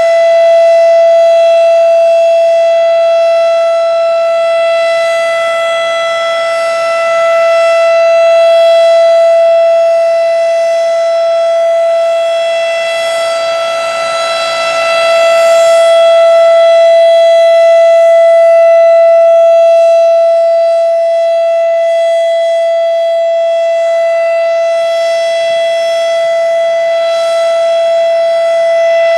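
Federal Signal RSH-10 Thunderbeam electromechanical tornado siren sounding the steady Alert tone, one held pitch with strong overtones. Its loudness swells and fades in slow waves several seconds apart as the siren rotates.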